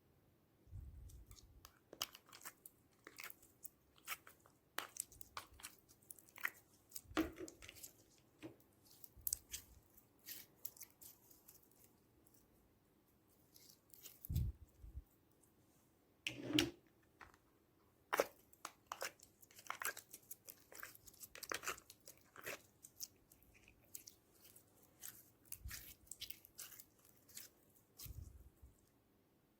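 Slime being mixed and squished, giving irregular crackles, clicks and sticky pops with a few soft low thuds.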